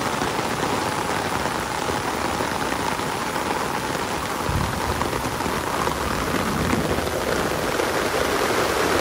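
Steady rain falling, with a low rumble coming in about halfway through.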